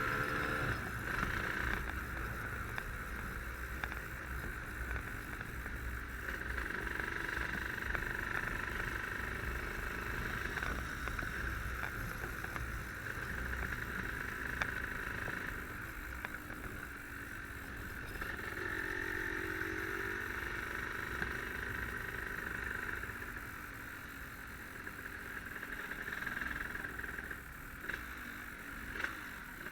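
Yamaha RD135 two-stroke single-cylinder motorcycle engine running steadily on the move, mixed with a low wind rumble on the microphone.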